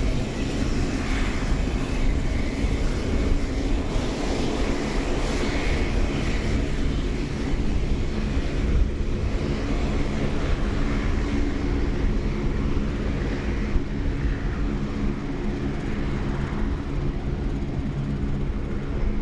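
Four turboprop engines of a Lockheed C-130J Super Hercules running steadily as it rolls along the runway: a continuous propeller drone with a steady hum of several tones over a wide rushing noise.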